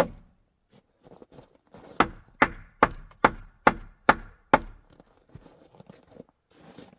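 A wooden support pole being knocked tight into place under a roof beam: one sharp blow on wood, then a run of seven quick blows about two a second, driving it into a tight friction fit.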